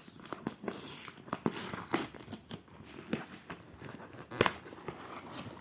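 Packaging being handled and torn open: irregular crinkling and crackling, with one sharper snap a little over four seconds in.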